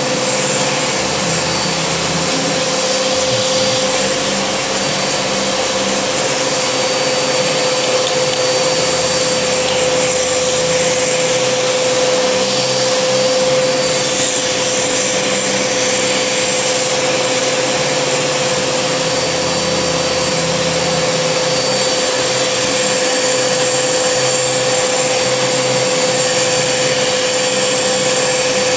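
Vacuum cleaner with a brush nozzle running steadily: a rushing air noise with a constant hum and a thin high whine over it.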